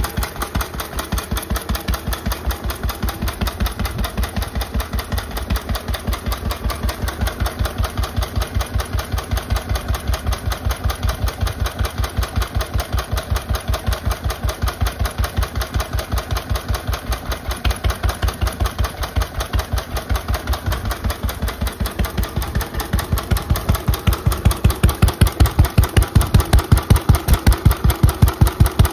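Lister A single-cylinder stationary engine running steadily through a fitted alternative exhaust silencer, an even, regular beat of firing strokes. The beat grows louder over the last several seconds.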